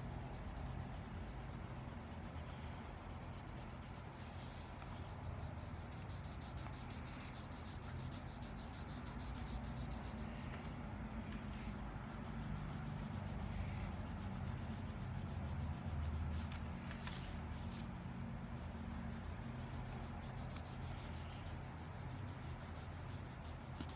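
Marker scribbling on paper as a drawing is coloured in, a steady rubbing over a low, steady hum.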